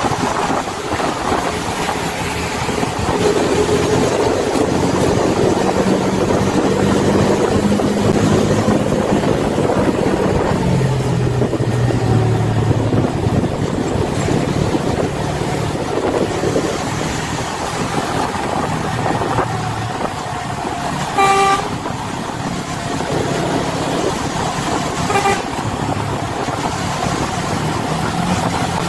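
Heavy diesel engine running on the road, its pitch shifting as the throttle changes. A vehicle horn toots once about two-thirds of the way through and again, more briefly, about four seconds later.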